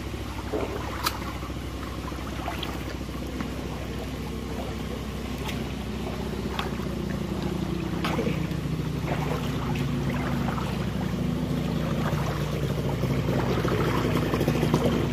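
Feet wading through shallow water in a ditch, with small splashes and sloshing over a steady low rumble; the splashing grows louder toward the end as a wader comes close.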